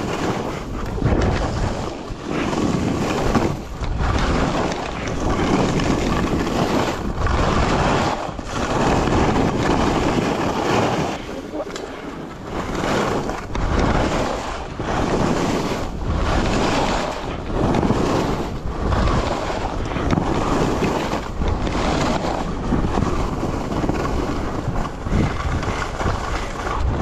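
Skis hissing through snow in a run of linked turns, the rush swelling and dropping about once a second, with wind buffeting the microphone.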